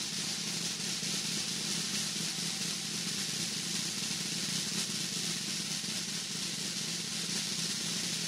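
Steady hiss with a low hum underneath: background noise of the recording, with no music playing.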